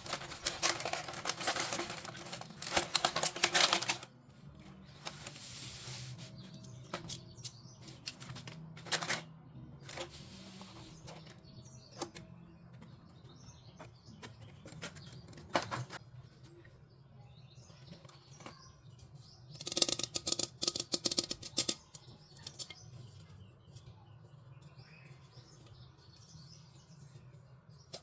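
Plastic packaging and toy pieces being handled: dense crinkling and rapid clicking at the start and again about two-thirds through, with scattered single clicks and taps between.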